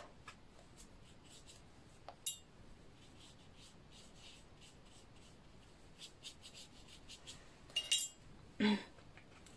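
Faint small clicks and clinks of a paintbrush against the watercolour paint box and water jar, most of them in a cluster about six to seven and a half seconds in. A brief vocal sound comes near the end.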